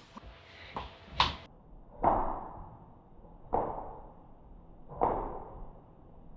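A sharp percussive hit repeated evenly about every one and a half seconds, each one fading out over about a second, after a few short clicks in the first second and a half.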